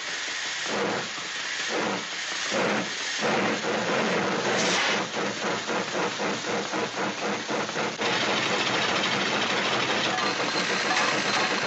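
Chugging steam-train sound effect: rhythmic hissing chuffs, slow at first, then speeding up to several a second before running into a steady rushing hiss.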